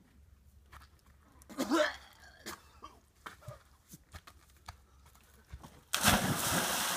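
Dry brush and twigs crunching, with a short voice-like sound about two seconds in. About a second before the end, a sudden, much louder rush of running or splashing water cuts in.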